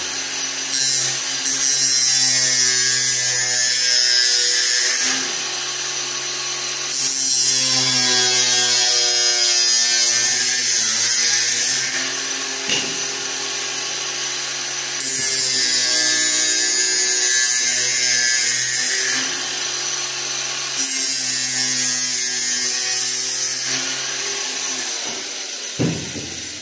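A power saw motor running steadily while cutting decorative panel sheet. There are four cutting passes of a few seconds each, where the sound gets louder and hissier, and the motor keeps running between them. There is a knock near the end.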